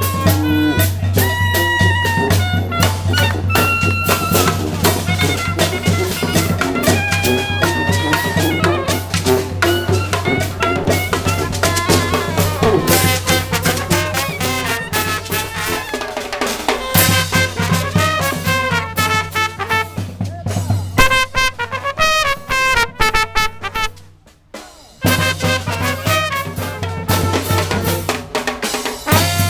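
Brass street band playing, with horns over steady drumming. About three-quarters of the way through the band stops for about a second, then comes back in.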